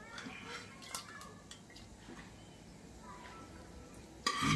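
Metal ladle knocking and scraping against a pressure cooker and a steel kadai while boiled chicken and potato pieces are ladled across: a few light clinks early, then a louder clatter near the end.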